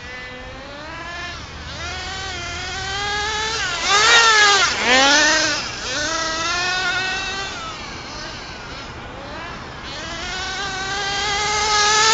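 HPI Rush Evo nitro RC truggy's small glow engine screaming at high revs, its pitch rising and falling as it accelerates and backs off. It comes loudest about four seconds in and again near the end, the pitch dropping sharply each time as it lifts off the throttle.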